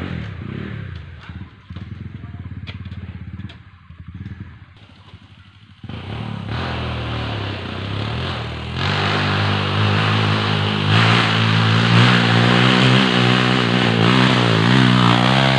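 Trail motorcycle engine running low with a few clicks at first. It gets louder about six seconds in and revs hard from about nine seconds, its pitch rising and falling near the end.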